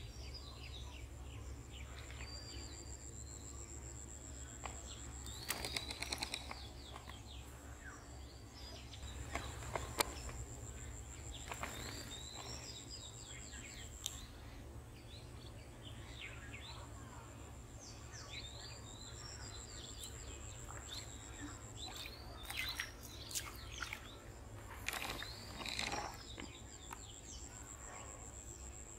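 Small birds chirping and twittering on and off, with a thin, high steady trill that stops and starts over a low background rumble.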